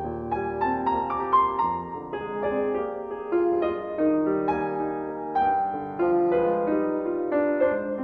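Piano music: a melody of separate notes over sustained chords, each note starting sharply and fading.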